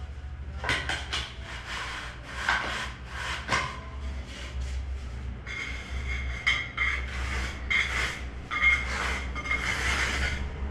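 Hand tool scraping and smoothing damp sand-cement mortar in a series of short strokes while a shower-floor mortar bed is screeded along wooden laths. From about halfway a thin high tone rides along with the strokes, over a steady low hum.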